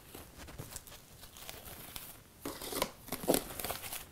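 Plastic wrap crinkling and rustling as it is pulled and folded around a ball of dough: faint at first, with a run of louder crinkles about two and a half seconds in.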